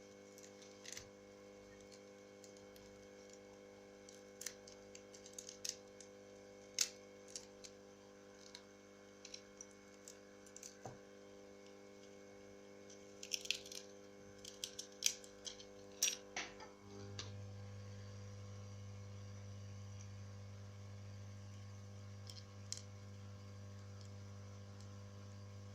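Scattered light clicks and taps of small tools working on a phone with a glued-on touchscreen, over a steady electrical hum. About seventeen seconds in, the hum changes to a lower, louder one.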